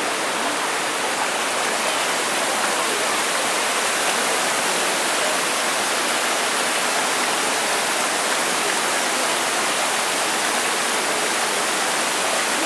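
Fast mountain stream rushing over boulders in shallow rapids: a steady, loud rush of white water.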